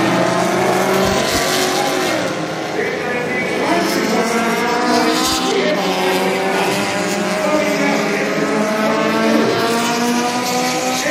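Several race cars' engines running at speed around a circuit, their overlapping notes rising and falling as they accelerate, lift and pass.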